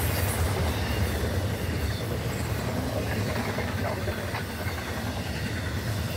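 Florida East Coast Railway intermodal freight train passing, its trailer and double-stack container cars rolling over the rails with a steady low rumble, hiss and clatter of wheels.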